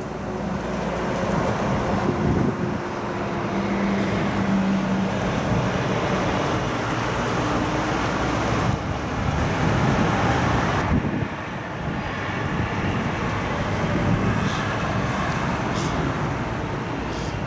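Boeing 787-9 Dreamliner's jet engines: a loud, steady rushing noise with a low hum in the first few seconds.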